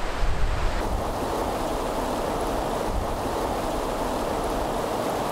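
Steady rushing of river water over a shallow rocky rapid. Wind buffets the microphone during the first second.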